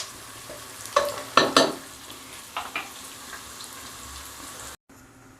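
Food sizzling in a hot cooking pot, with several sharp metal knocks against the pot in the first two seconds and a few lighter ones a little later; the sizzle stops abruptly shortly before the end.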